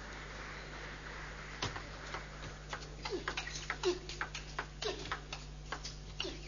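Table tennis ball clicking off the rackets and the table: a serve about a second and a half in, then a quick rally of rapid clicks. A steady low hum of the broadcast runs underneath.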